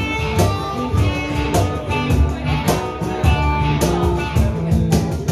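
Live acoustic blues played by a small band: a strummed steel-string acoustic guitar, a cajon slapped in a steady beat of about two hits a second, and a harmonica playing long held notes over them.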